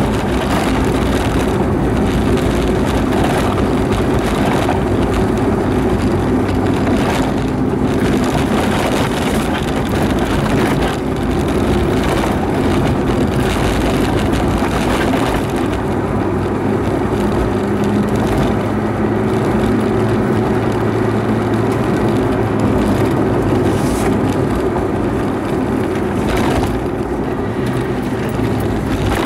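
Renault Supercinq Campus's small four-cylinder petrol engine running while driving, heard from inside the cabin together with road noise; the engine note shifts in pitch a few times as the speed changes.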